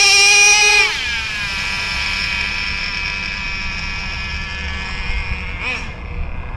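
High-pitched whine from a small motor or engine, holding a steady pitch. It drops in level about a second in, runs on more faintly, and gives two brief rising-and-falling blips near the end.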